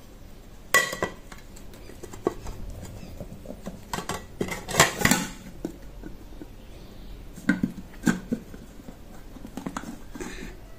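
A plate and a metal tube cake pan clink and knock as the pan is turned over onto the plate and handled to release the cake. The knocks are scattered and sharp, busiest about four to five seconds in.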